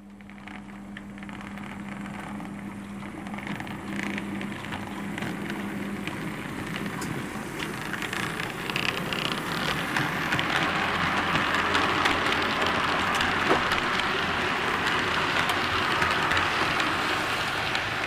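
Model train running along the track, a steady rush of motor and wheel noise with scattered clicks, growing louder as it approaches and passes close by.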